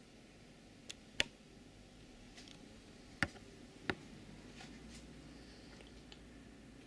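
A bird pecking at window glass: sharp taps, two close together about a second in and two more about three and four seconds in.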